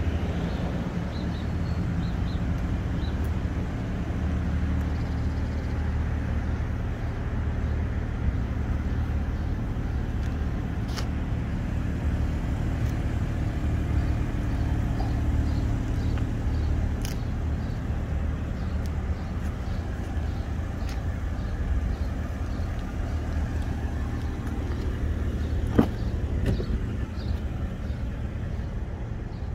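A 2021 BMW M340i's turbocharged inline-six running steadily: a low, even hum with no revving. A few light clicks come through, the sharpest near the end.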